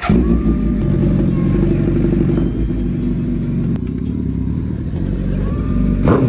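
Suzuki Hayabusa superbike's inline-four engine running steadily, a deep even rumble, with a short rising sweep near the end.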